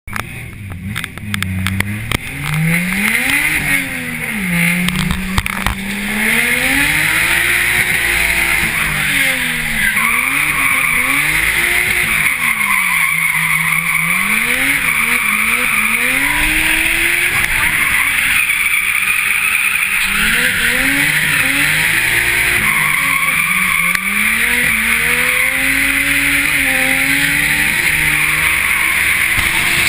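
Nissan 240SX (S14) drift car heard from inside the cabin while drifting: the engine revs rise and fall over and over as the throttle is worked through the slide, over a steady screech of sliding tyres. It is quieter for the first few seconds, then the tyre screech sets in and holds.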